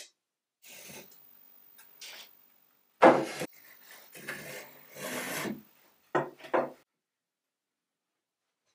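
Mitered scrap-wood frame pieces being handled and slid across a plywood workbench: wood scraping and rubbing on wood, with a loud knock about three seconds in and two sharper knocks a few seconds later.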